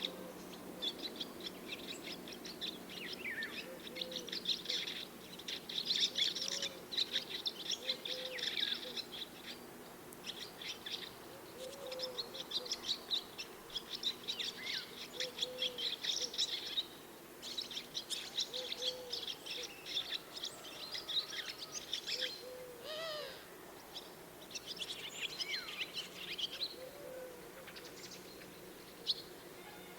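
Swallows twittering in a dense, fast stream of high chirps that thins out near the end. Under it, another bird gives a short, low hooting note every couple of seconds.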